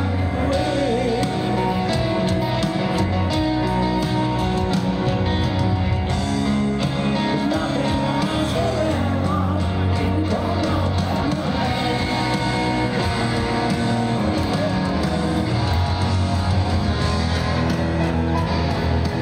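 Rock band playing a slow ballad live, with grand piano, electric guitar, steady bass and a singing voice, heard through the stadium PA from the crowd.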